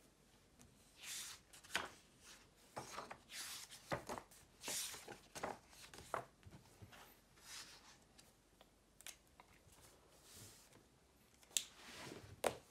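Paper sketchbook pages rustling as they are handled and turned, in a string of short, irregular swishes and crinkles, with a few sharp clicks.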